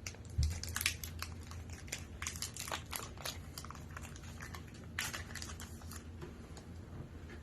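Foil trading-card pack wrapper crinkling as cards are handled, an irregular run of small crackles and rustles with a louder crackle about five seconds in.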